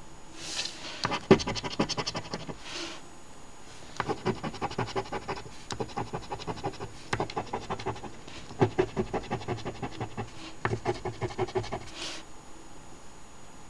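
A coin scratching the scratch-off coating of an instant lottery ticket in quick back-and-forth strokes. It comes in about six short bursts with brief pauses between them.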